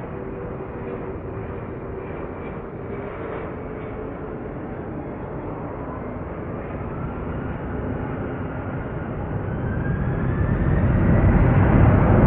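Boeing 777 airliner on final approach and flare, its twin turbofan engines giving a steady jet rumble with a whine that rises in pitch. The sound grows clearly louder over the last few seconds as the jet comes over the runway just before touchdown.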